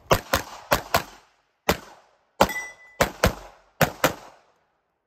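Handgun shots fired rapidly in a practical-shooting drill: about ten shots, mostly double-taps a quarter second apart, with short gaps between pairs. A brief ringing tone follows the shot about two and a half seconds in.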